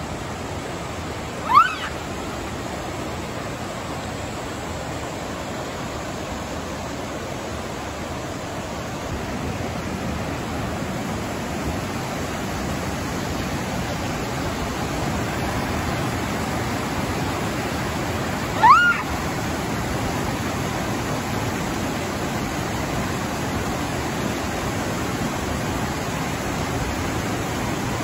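Japanese macaque giving two short rising calls, one about two seconds in and one about two-thirds of the way through, over the steady rush of a mountain river. The calls are a mother's cries while she searches for her lost infant.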